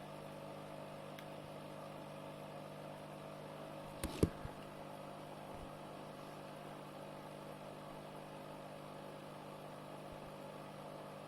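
Steady low mechanical hum, with two sharp knocks in quick succession about four seconds in.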